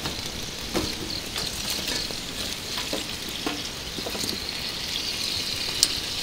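Food sizzling on a grill grate over a fire pit: a steady sizzle with scattered sharp pops.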